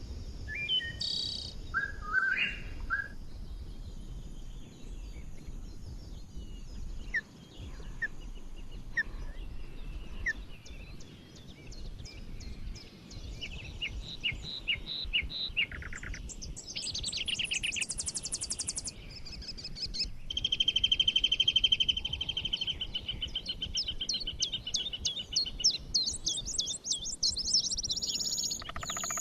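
Songbirds of several kinds singing and calling together in a composed forest ambience: overlapping chirps, whistles and rapid trills over a faint low background hum. The loudest is a long, fast, even trill that runs for several seconds from about twenty seconds in.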